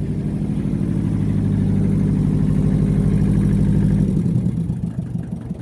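Massey Ferguson 205-4 compact tractor's diesel engine running with a steady pulsing beat. About four seconds in, the engine speed drops and it runs slower and a little quieter.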